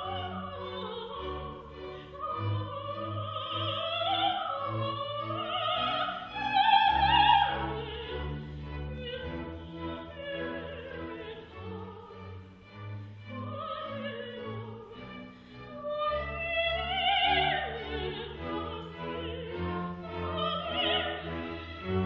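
A soprano singing opera with a wide vibrato over orchestral accompaniment, her line climbing to a loud high note about seven seconds in, with sustained low string notes beneath.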